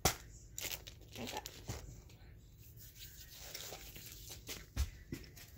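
Plastic candy wrapper crinkling and tearing as it is pulled open, in a run of sharp crackles, the loudest right at the start.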